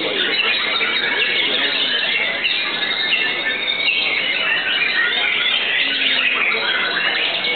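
Caged white-rumped shamas (murai batu) singing at a songbird contest: many songs overlap into a steady stream of rapid chirps, whistles and trills.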